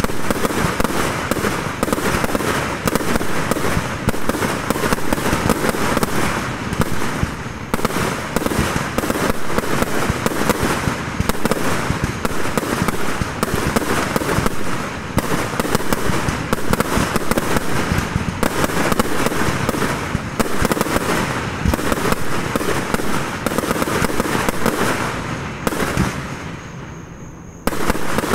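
Fireworks display: aerial shells launching and bursting in a dense, continuous barrage of rapid bangs. It eases off for a moment near the end, then picks up again.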